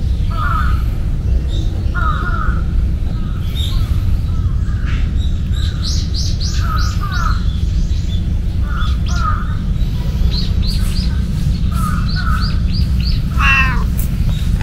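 Crows cawing repeatedly, often two calls at a time, with a smaller bird chirping in quick series in between. A steady low rumble runs underneath.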